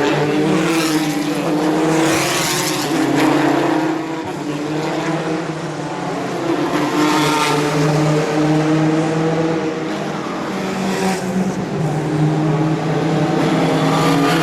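1970s Formula 1 racing cars at full race pace, their engines revving up and down through the gears as several cars pass one after another, each pass swelling and fading.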